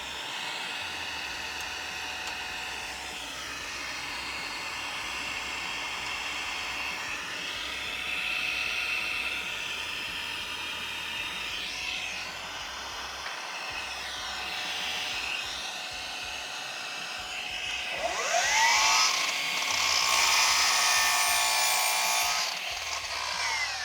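Cordless mitre saw (Milwaukee M18 FUEL 305 mm) spinning up in the last quarter, cutting through a crown moulding workpiece, then winding down just before the end.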